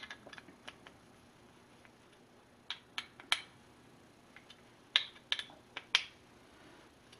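Sharp metal clicks and taps of a hex key and a dial-indicator holder being handled at a lathe's quick-change tool post. There is a quick cluster at the start, three louder clicks about three seconds in, and another group around five to six seconds.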